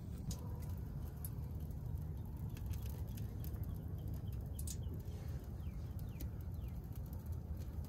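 Faint scattered crackles from a small wood-stove fire just catching from a wax fire starter, over a steady low rumble. A few faint bird chirps come about two-thirds of the way through.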